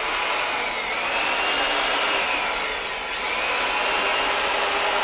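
Handheld electric paddle mixer stirring white cement in a plastic bucket: a steady motor whine that sags briefly in pitch twice, about one and three seconds in, and picks back up.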